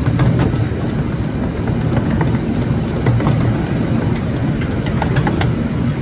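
Narrow-gauge miniature steam train running along the track, heard from a carriage behind the locomotive: a steady low rumble of the wheels with scattered clicks and clanks.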